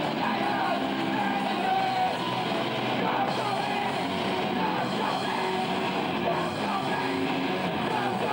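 A live punk rock band playing, with guitar and yelled singing.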